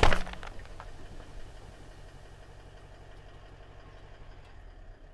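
The last aluminium soda can bursting under a car tyre, its fizz spraying out, over the first half-second; then the car's engine idling steadily with a low hum.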